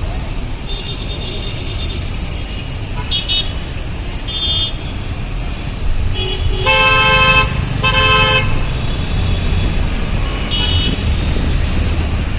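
Road traffic: a steady rumble of engines and tyres with vehicle horns honking several times, short toots early on and two loud, longer honks about seven and eight seconds in.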